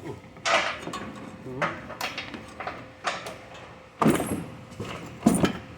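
Clanks, scrapes and rattles of metal car parts being worked loose during a teardown, about half a dozen sharp knocks spread over a few seconds.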